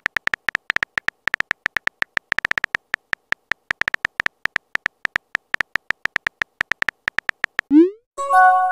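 Chat app's typing sound effect: rapid short beeping ticks, about eight a second, one per typed letter. Near the end a quick rising whoosh and a short chime sound as the message is sent.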